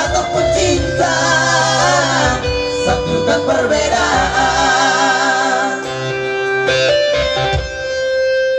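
Male vocal trio singing with vibrato over guitar-led backing music. Near the end the voices drop out and one long held note rings on.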